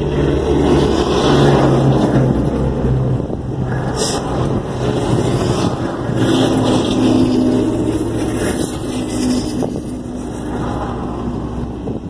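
Highway traffic passing a car stopped on the shoulder, heard from inside the cabin: a steady road hum with engine tones, swelling twice as vehicles go by.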